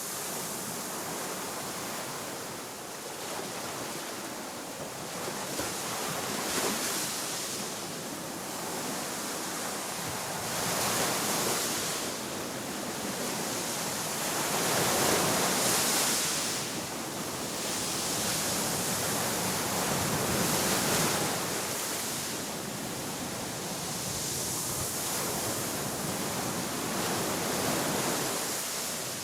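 Sea waves washing onto a shore: a steady rush of surf that swells and falls back every few seconds.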